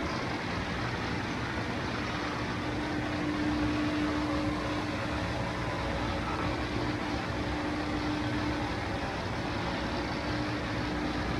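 Steady mechanical running noise of a gondola cabin rolling slowly through a cable car station on its guide rails, with a steady hum from the station machinery coming in about two seconds in and dropping away near the end.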